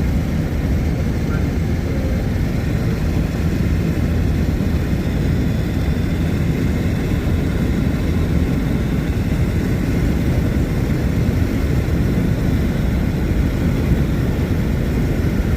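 A car driving along with a steady low road rumble.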